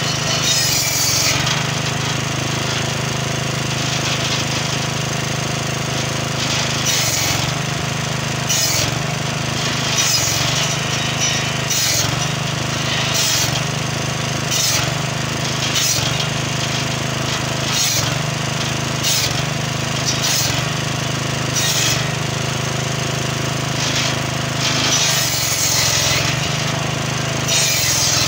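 Petrol-engined circular saw running steadily while its carbide-tipped blade cuts acacia logs one after another, each cut a short burst of noise over the engine, about every second or two.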